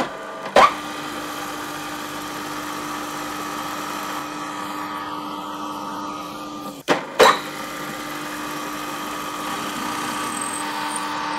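Bench drill press motor running steadily as a centre drill, then a 5 mm twist drill, cuts into a 10 mm round bar held in a drill vise. The hum breaks off with a short click about seven seconds in and picks up again, a little louder toward the end.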